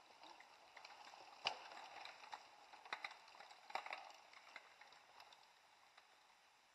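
Faint sound of mountain bikes riding past on a dirt forest trail: a low rustle of tyres that swells over the first few seconds and fades, with a few sharp clicks and rattles from the bikes.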